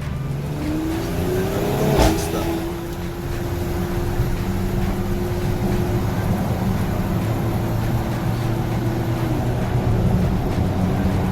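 Car engine running steadily. A tone rises over the first couple of seconds, then holds steady until near the end, with a single sharp knock about two seconds in.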